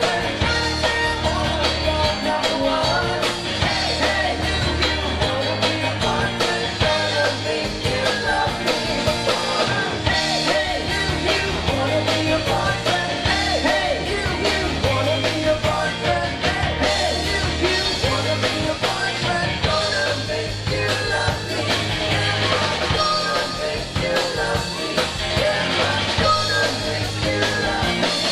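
Live rock band playing, with electric guitar and drums driving a steady beat and a lead vocalist singing, heard from within the audience.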